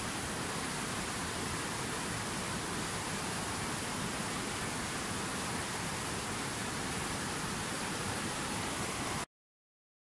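Fast mountain river rushing over rocks: a steady hiss of white water that cuts off suddenly near the end.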